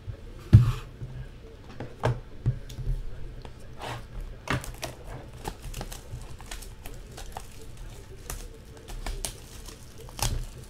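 Plastic shrink-wrap being torn and crinkled off a sealed box of Topps Inception football trading cards, with the cardboard box handled and opened in many small clicks, taps and rustles. A louder knock comes about half a second in.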